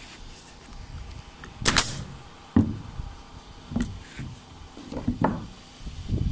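Pneumatic nail gun driving nails through wooden cross braces into floor joists: about four sharp shots a second or so apart, the loudest just under two seconds in.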